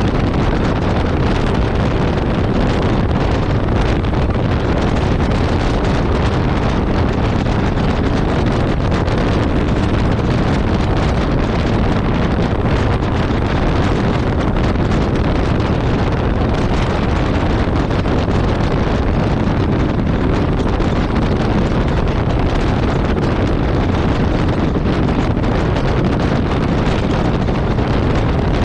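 Steady wind rush buffeting the microphone of a Yamaha Ténéré 700 motorcycle cruising at road speed, with the bike's parallel-twin engine running under it.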